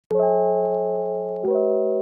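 Intro music: sustained keyboard chords, moving to a new chord about one and a half seconds in.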